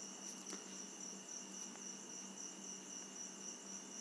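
A faint, steady high-pitched trill, typical of a cricket, over a low steady hum.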